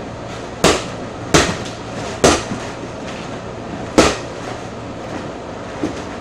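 Rubber playground ball bouncing on a hard floor: four sharp thumps at uneven intervals over a steady low hum, with a fainter knock near the end.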